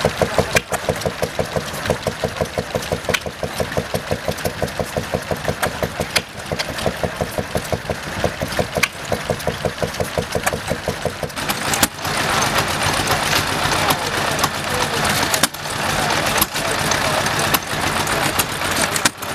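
Small single-cylinder stationary engine running steadily, with a regular exhaust beat of about five pulses a second. About twelve seconds in, this gives way to a busier mix of running engines with occasional sharper knocks.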